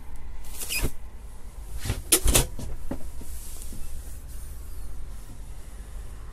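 Motorhome refrigerator and freezer compartment doors being shut by hand: a click just under a second in, then two sharp clacks a little after two seconds as the door latches.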